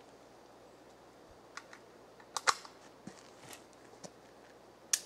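A scattered series of short, sharp clicks, about eight in all at irregular spacing, the loudest about halfway and just before the end: a rifle and its tracer rounds being handled while loading.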